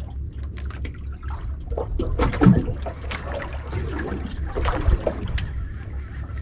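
Sea water lapping and sloshing against the hull of a small outrigger boat, in uneven splashes, over a steady low rumble, with scattered small knocks.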